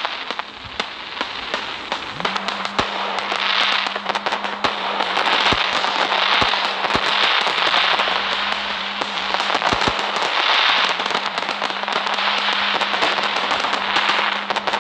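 Fireworks going off: a continuous crackling hiss packed with sharp pops and bangs, with a steady low hum underneath.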